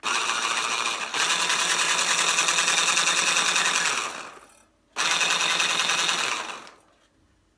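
Cecotec Powerful Titanium 1000 W hand blender motor running at high speed on its turbo button, in two goes: about four seconds that then winds down, and a shorter burst about five seconds in that also winds down.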